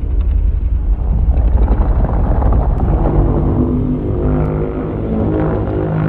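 Godzilla atomic breath sound effect in the Showa-era style: a loud, deep rumble, joined about halfway through by a pitched buzzing tone that steps up and down in pitch.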